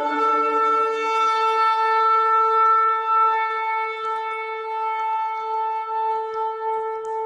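Shofar sounding one long blast, starting suddenly and held at a single steady pitch with a slight waver.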